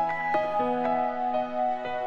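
Instrumental background music in a gentle new-age style: held notes overlapping, with a new note starting about every half second.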